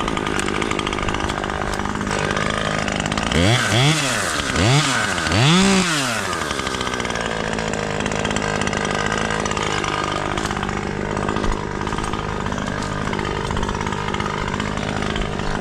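Chainsaw revved up and back down four times in quick succession, about three to six seconds in, over a steady engine hum.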